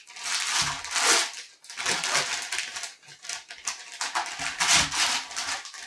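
Wrapping paper being torn and crumpled off a gift in a series of rough rips, each lasting about a second.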